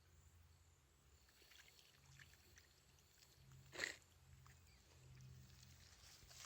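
Near silence: faint scattered rustles and ticks over a low steady hum, with one brief louder rustling noise about four seconds in.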